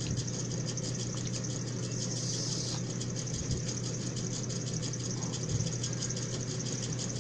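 A steady low mechanical hum, like a motor running, with a brief rustle about two seconds in and a few faint knocks from handling food at the table.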